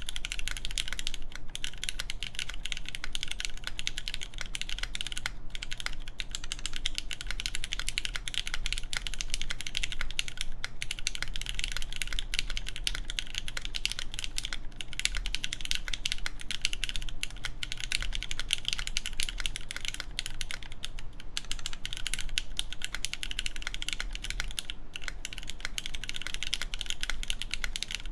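Fast, continuous typing on a Machina Cloudnine mechanical keyboard: lubed Cherry MX Black clear-top linear switches in an aluminum plate, with GMK Carbon keycaps. Dense, even key clacks, with a few brief pauses.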